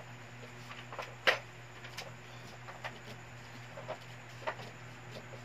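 Child's scissors snipping through coloured paper: a handful of separate, irregular snips, the loudest just over a second in, over a steady low hum.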